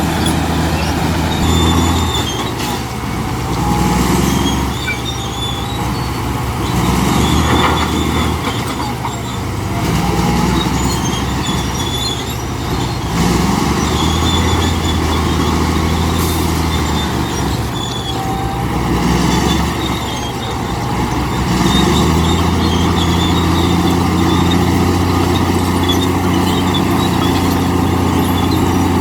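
Komatsu D65P bulldozer's diesel engine working, its note swelling and easing every few seconds as the load changes, with short high squeaks heard now and then.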